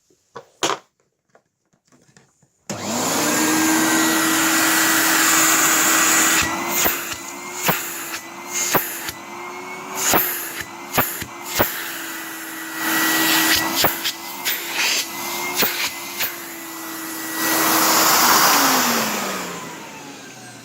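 Numatic Henry HVR 200 canister vacuum cleaner switched on with a few clicks, its motor running with a steady whine and rushing air. Repeated sharp clicks and knocks come through the middle while it runs. Near the end it is switched off and the motor winds down, its pitch falling.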